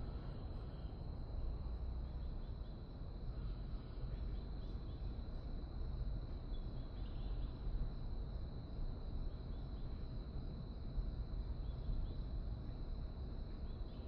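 Outdoor summer city ambience: a steady low rumble of background city noise under a thin, steady high insect drone, with a few faint chirps scattered through.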